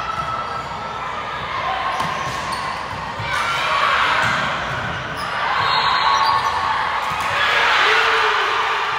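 Volleyball being played in a gym hall: a few sharp ball hits echo through the hall, and voices of players and spectators rise in three swells of shouting and cheering.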